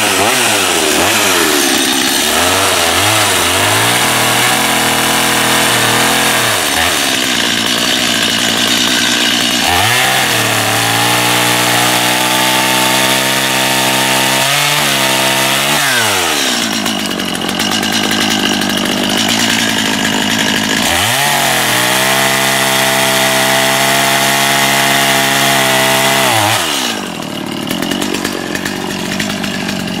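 Gas chainsaw running and cutting logs. Its engine note wavers and glides between cuts, then drops and holds steady at a lower pitch through two long cuts, about ten and twenty seconds in. It eases off near the end.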